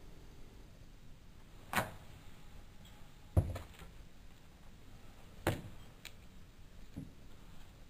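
A mini skateboard knocking on concrete paving slabs: a few sharp knocks, the loudest about three and a half seconds in as the tail is popped, and another about two seconds later as the board lands on its wheels.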